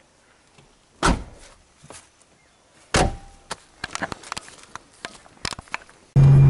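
A car door shut with a thud about a second in, another knock about two seconds later, then small clicks and knocks of handling. Near the end the sound cuts abruptly to the steady engine and road drone heard inside a moving car.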